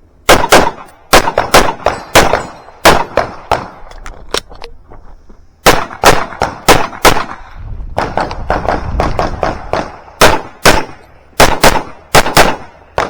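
Pistol fired rapidly on a shooting course: about twenty sharp shots, many in quick pairs, with short pauses between strings. There is a longer break around the middle.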